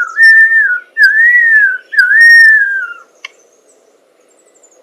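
Lyrebird giving three loud whistled notes, each about a second long, holding or arching in pitch and then sliding down.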